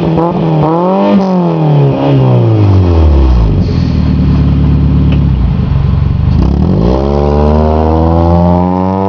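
Exhaust of a 1993 Toyota Corolla's 4A-FE 1.6-litre inline-four being revved. A couple of quick throttle blips, then the revs fall away to a low, steady note for a few seconds, and from about seven seconds in they climb steadily again.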